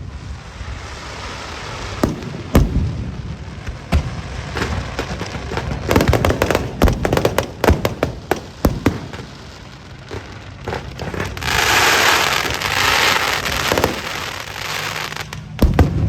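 Aerial fireworks display: repeated sharp bangs of shells bursting, a rapid cluster of them about six to nine seconds in, then a long dense crackling from about eleven to fourteen seconds, with more bangs near the end.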